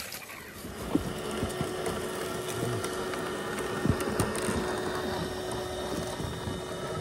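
Scale RC rock crawler's electric motor and geared drivetrain running with a steady whine while it crawls over rocks. A few sharp knocks come from the tires and chassis striking rock.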